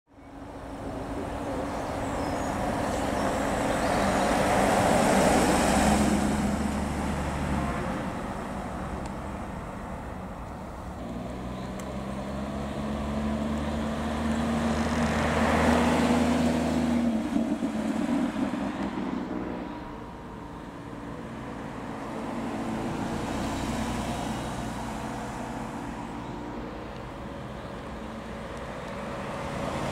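Porsche sports cars driving past one after another at low speed, each engine's sound swelling as it approaches and fading away; the loudest passes come about five seconds and sixteen seconds in, with a quieter one a little after twenty seconds.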